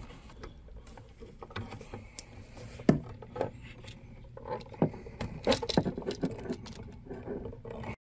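Small clicks and taps of needle-nose pliers and copper wire against a light switch as a hook is bent in the wire end and set on the terminal screw. The sharpest click comes about three seconds in, with a quicker run of clicks a little past halfway.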